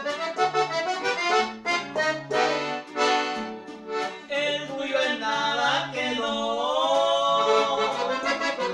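Piano accordion playing a lively melody, with an acoustic guitar strumming the chords and bass line underneath.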